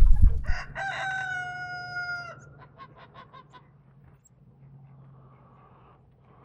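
A rooster crowing once, a single held call lasting about a second and a half, followed by a few soft clucks. A loud burst of noise comes at the very start.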